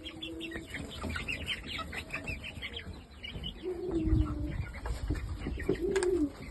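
Young Shamo chickens peeping in a pen, many short high chirps throughout, with three lower drawn-out falling calls: one at the start, one about four seconds in, one about six seconds in.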